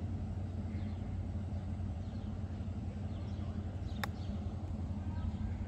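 A pitching wedge strikes a golf ball on a chip shot: a single sharp click about four seconds in, over a steady low hum.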